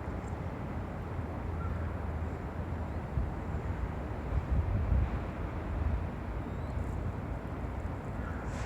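Steady low outdoor rumble of background noise, with no clear bird call standing out.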